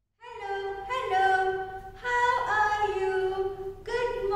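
A woman's voice singing unaccompanied in long held notes, three phrases in a row.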